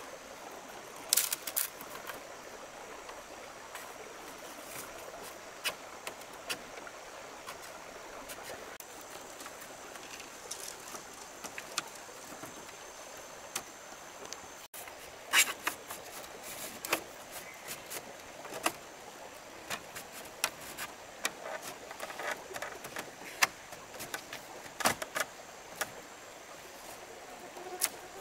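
Irregular light clicks and knocks, some in quick clusters, over a steady hiss.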